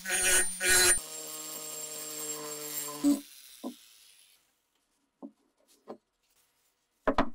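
Handheld rotary tool with a conical grinding bit grinding the steel inside an axe head's cutouts for about a second, then running free with a steady whine until it stops about three seconds in. A few light knocks follow, with a louder double clack near the end, as metal is handled on the wooden bench.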